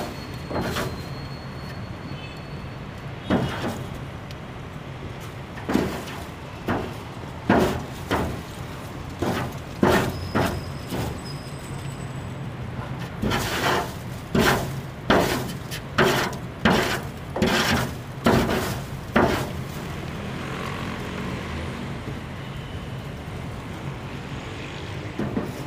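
Long-handled broom scraping dry leaves along a concrete rooftop gutter in a series of quick, uneven strokes that stop about twenty seconds in. A steady low hum runs underneath.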